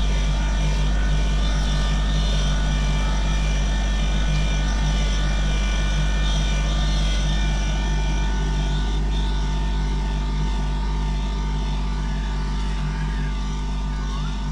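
Kubota compact tractor's diesel engine running steadily while pulling a plow through a potato row, at an even pitch with no revving.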